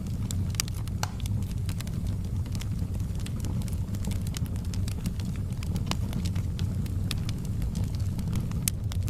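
Wood fire in a fireplace crackling: many irregular sharp pops and snaps over a steady low rumble of the flames.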